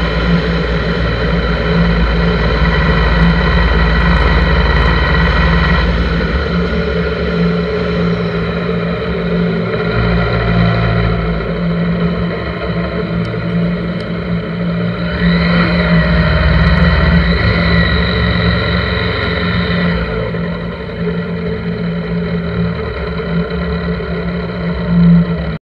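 1983 Honda GL1100 Gold Wing's flat-four engine running steadily at road speed, heard with mechanical noise from the bike, with a rising-and-falling whine about halfway through.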